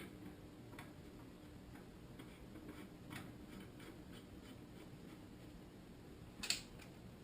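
A few faint clicks as metal fork parts, including the compression valve, are handled and fitted, with one sharper click near the end.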